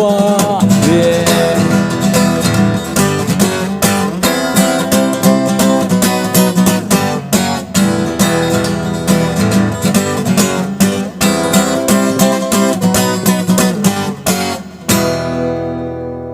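Acoustic guitar strummed in a steady rhythm, ending about fifteen seconds in on a final chord that is left to ring out and fade.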